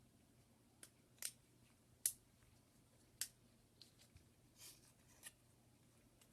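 Faint, sharp clicks and taps of small repair tools and parts being handled, about six of them spread irregularly, with a short scrape about two-thirds of the way through.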